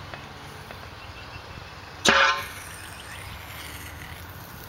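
A homemade CO2-powered paintball rocket launcher firing once about two seconds in: a sudden, loud, short blast with a brief pitched, horn-like tone.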